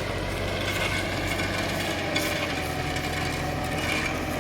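A steady low engine hum from idling machinery at the road works, with irregular scraping and rubbing over it.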